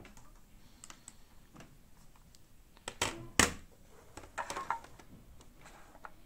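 Small items being moved about and set down on a tabletop: a plastic insert tray and a digital kitchen scale. There are scattered light taps, two sharp knocks about three seconds in, and a cluster of light rattles soon after.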